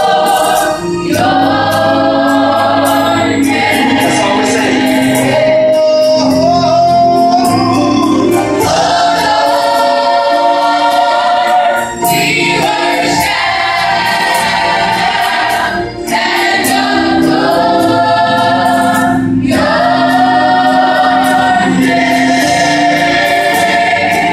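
Children's and youth gospel choir singing long held chords in harmony, phrase after phrase with short breaks between them, accompanied by keyboard.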